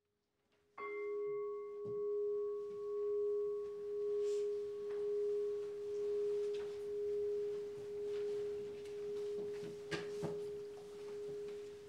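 A Buddhist bowl bell struck once about a second in, ringing with one steady tone and fainter higher overtones that die away first, its sound wavering about once a second as it slowly fades. Two small knocks near the end.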